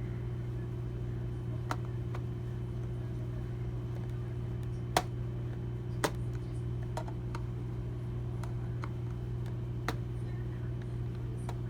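Scattered sharp clicks and taps of a screwdriver working small screws out of plastic packaging, the loudest two about five and six seconds in, over a steady low hum.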